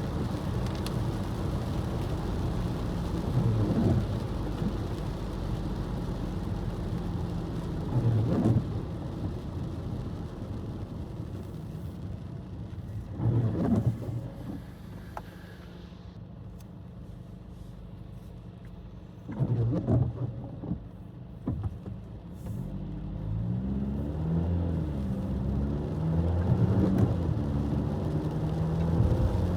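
A car driving on a wet road, with a steady low road and engine rumble. A short swelling whoosh comes every four to five seconds. In the last several seconds the engine note rises and wavers in pitch as the car accelerates.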